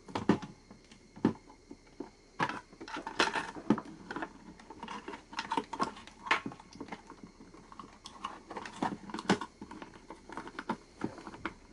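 Irregular plastic clicks, taps and rubbing of hands working a LiPo battery and its wiring into an airsoft electric gun, a tight fit that has to be forced.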